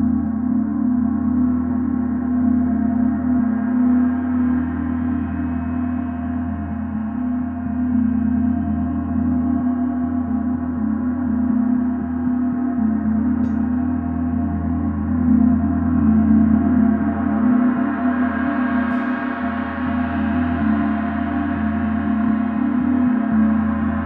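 Paiste symphonic gong in a sustained, steady wash: a deep drone with layered shimmering overtones and no distinct strikes. The upper shimmer swells and brightens about two-thirds of the way through.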